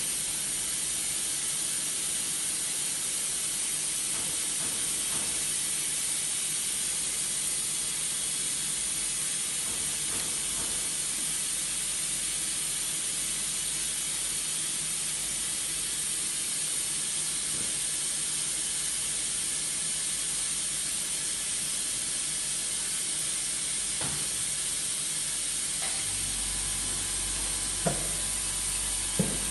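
A steady, even hiss that starts abruptly and holds one level, brightest in the high treble. A low hum joins a few seconds before the end, and a couple of faint clicks come near the end.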